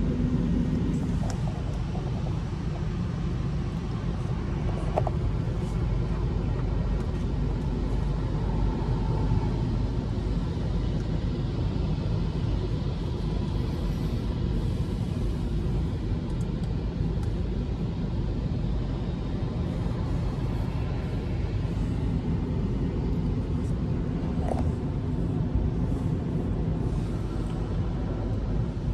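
Automatic car wash heard from inside the car: the wash machinery runs with a steady low rumble, while soft cloth strips sweep and slap over the windscreen.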